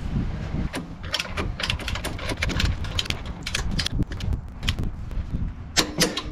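Click-type torque wrench ratcheting in short strokes as a panhard rod bolt is tightened. Near the end it gives a loud double click as it reaches its set torque of 95.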